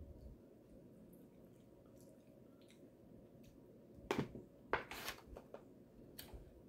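Quiet room tone, then from about four seconds in a few short, sharp clicks and smacks from eating a seafood boil with crab legs.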